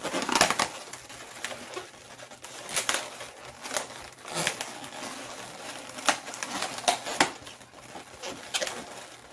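Inflated white latex modelling balloons squeaking and rubbing against each other and the hands as the loops are twisted and pressed together, in irregular squeaks and rustles.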